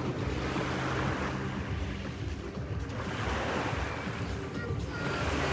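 Sea waves breaking and washing on the shore, the surf hiss swelling and fading every couple of seconds.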